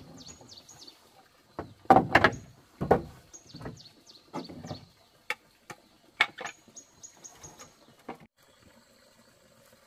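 Irregular wooden knocks and thuds from work on a plank floor, the loudest pair about two seconds in, then lighter taps. Small birds chirp high and short in between.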